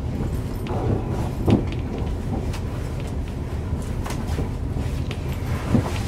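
Interior of a Class 185 diesel multiple unit under way: a steady low rumble of wheels on rails, with scattered clicks and knocks, the sharpest about a second and a half in.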